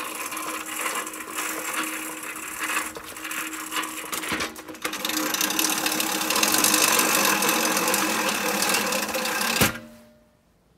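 Manual push reel mower's spinning cylinder blades whirring as they cut tall grass. It dips briefly about four seconds in, is louder in the second half, and stops abruptly near the end.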